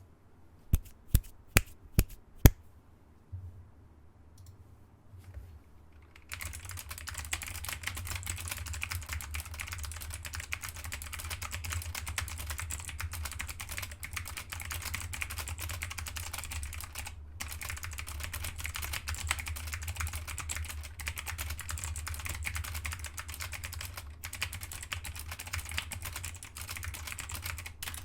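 SteelSeries Apex 5 keyboard with hybrid blue (clicky mechanical-membrane) switches. It starts with five sharp single key clicks, then about six seconds in turns to fast continuous typing with clicking keys, pausing briefly once midway.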